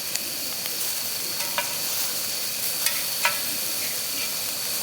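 Large prawns sizzling on a hot grill pan, with a few sharp clicks of utensils against the pan.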